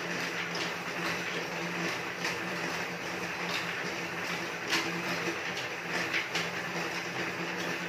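Home elliptical cross-trainer being pedalled: a steady mechanical hum from the flywheel and drive, with a click or knock from the pedal and handlebar linkage about once a second.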